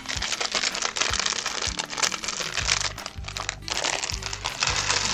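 Plastic Lego parts bag being crinkled and torn open, with loose bricks rattling inside, over background music with steady low notes.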